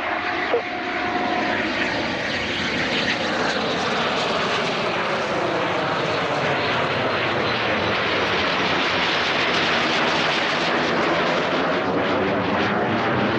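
Eurofighter Typhoon's twin EJ200 jet engines running as the fighter rolls along the runway after touching down, a loud steady jet noise. A set of tones inside it falls in pitch over the first few seconds as the jet passes.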